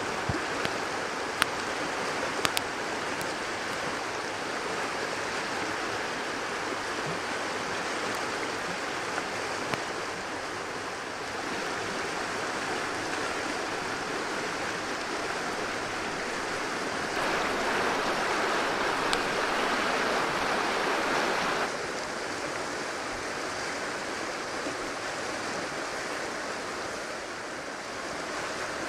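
Steady rushing of a river flowing close by, with a few sharp clicks of a knife on a wooden cutting board in the first few seconds. Past the middle the rushing grows louder for about four seconds, starting and stopping abruptly, then settles back.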